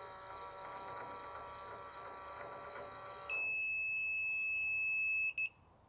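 Agrimatic automatic chicken-coop door running: its small electric motor whirs steadily as it drives the door open. About three seconds in, the door's controller gives one loud, high electronic beep lasting about two seconds, ending with a short blip.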